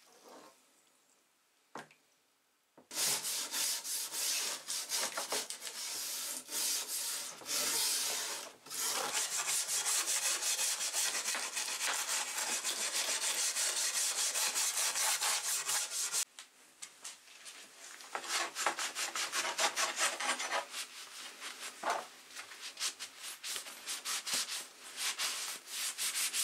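A brush scrubbing a soaked, rusty steel machete blade with rapid back-and-forth strokes, clearing off the dark rust residue. It starts a few seconds in and gets quieter about halfway through.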